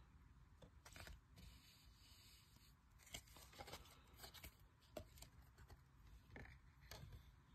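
Near silence with faint handling of chrome trading cards: soft scrapes and light clicks as the cards slide against each other and are set down on a wooden table, a few times through.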